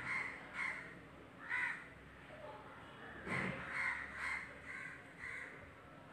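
Crows cawing repeatedly, short harsh calls every half second to a second. A brief scrape about three and a half seconds in, from a spoon stirring a steel pot.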